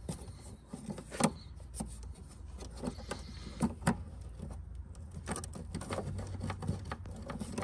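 Irregular clicks and light knocks of plastic connectors and clips being squeezed and worked by hand on a fuel pump flange, over a low steady rumble.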